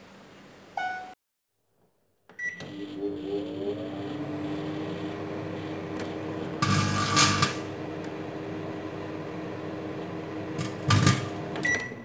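Samsung microwave oven beeping as its keypad is pressed, then running with a steady hum, with a louder noisy burst about halfway through and more noise and a beep near the end. Foil soaked in lighter fluid is heating inside until it catches fire.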